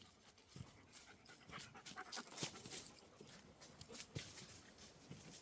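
A dog panting faintly, with small irregular clicks and rustles.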